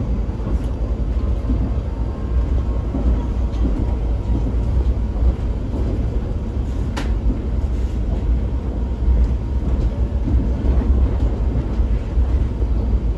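PESA EN97 electric multiple unit running along the track, heard from inside the passenger car as a steady low rumble, with one sharp click about halfway through.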